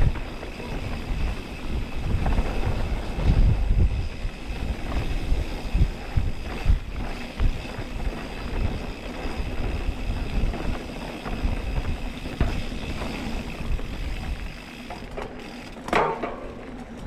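Mountain bike being ridden on a rough trail: wind buffeting the microphone, with uneven rumble and frequent knocks and rattles from the bike over the ground.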